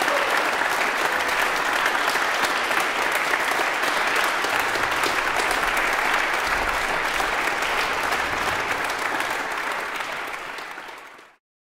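Audience applauding steadily in a reverberant hall, dense hand-clapping that fades away near the end.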